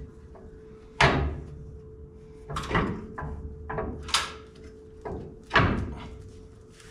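A steel front coil spring clunks and scrapes against the lower control arm of a 1968 Chevrolet C20 as it is worked into its seat. There are about six separate knocks, the loudest about a second in and again near the end.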